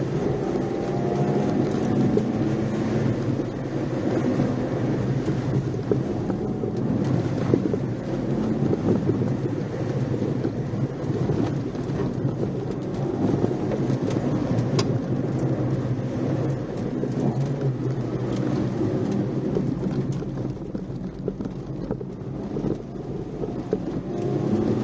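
Nissan March 12SR's 1.2-litre four-cylinder engine running steadily under way, heard from inside the car, with a dense rumbling noise over it.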